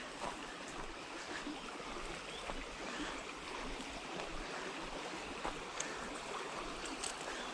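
Small creek water running steadily, with a few faint ticks scattered through it.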